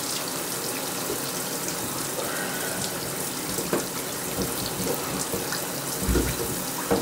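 Shower water running steadily, spraying and splashing, with a short low thump about six seconds in.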